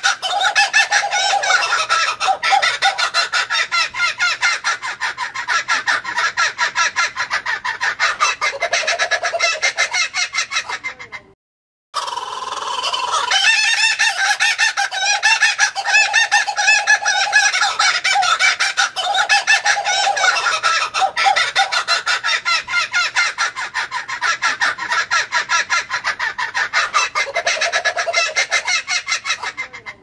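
Laughing kookaburra calling: a long, rapid cackling laugh of many quick repeated notes. It cuts off for under a second about a third of the way in, then starts again.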